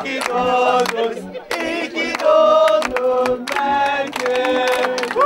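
A group of voices singing together, holding long notes that step up and down in pitch.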